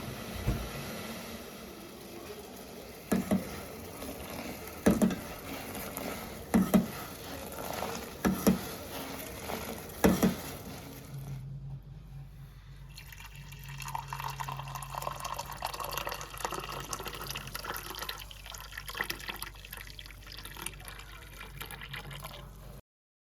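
Liquid being poured and handled while a drink is made. In the first half there are five sharp knocks, about one every 1.7 s. Then a steady low hum sets in under a continuous grainy liquid sound.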